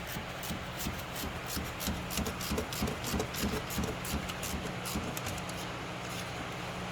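Ratchet wrench clicking quickly and unevenly for about five and a half seconds as a reverse-Torx alternator mounting bolt is unscrewed from the engine. A steady low hum runs underneath.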